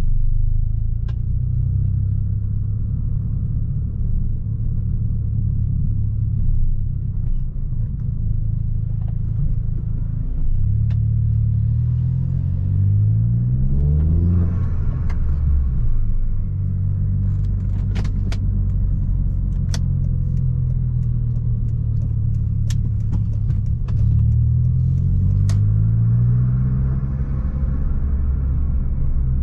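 Opel Astra G Bertone's turbocharged 2.0-litre four-cylinder engine on a drive: a low steady drone while cruising, with revs rising under acceleration about a third of the way in and again near the end. A few sharp cracks sound between the two pulls.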